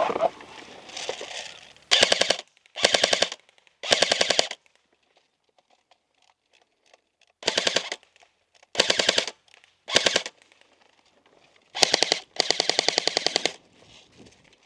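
A&K SR25 airsoft electric rifle (AEG) firing about eight short full-auto bursts, each a quick run of rapid mechanical clacks from the gearbox cycling. The last burst is the longest, over a second.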